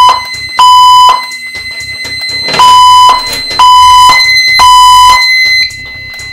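Fire alarm speakers sounding the temporal-three evacuation tone between voice messages: a loud beep near 1 kHz in groups of three, about one a second, with a pause between groups. The tone cuts off about five seconds in.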